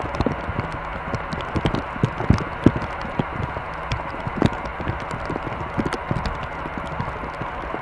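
Steady hum on board an Airbus A319-112 airliner, with frequent irregular knocks and rattles, several a second.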